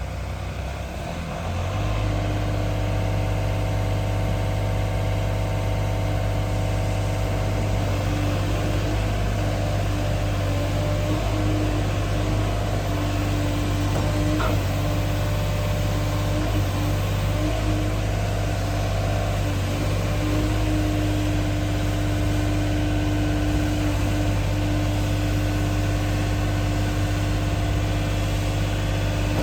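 JCB 50Z-2 mini excavator's diesel engine running steadily. About a second and a half in, it picks up to a higher speed and then holds it evenly.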